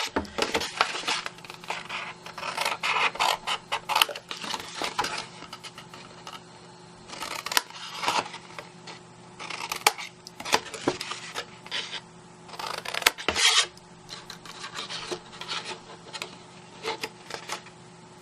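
Scissors snipping through cardstock, cutting small squares out of the corners of a scored box base, with the card rustling and rubbing as it is handled between cuts. The snips and rustles come irregularly, a louder one about 13 seconds in.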